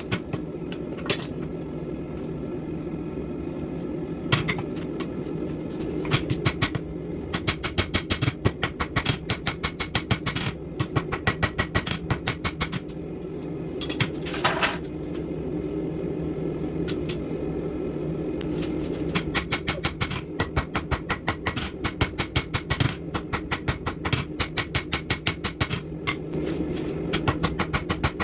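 Runs of rapid, evenly spaced hammer blows on steel at an anvil, several strikes a second with short pauses between runs, over a steady low hum.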